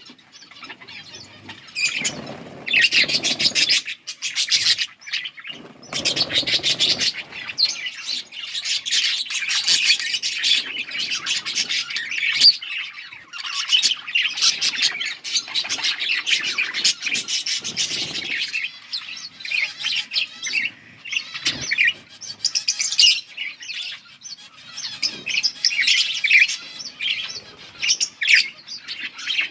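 Several budgerigars chirping and chattering almost without a break, a dense run of quick high chirps.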